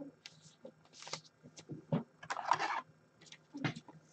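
Trading cards being handled at a table: scattered light taps and rustles, with a short scraping slide about two and a half seconds in.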